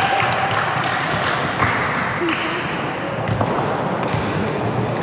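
Basketball bouncing on a hard indoor court, with short knocks over a steady, noisy hall background.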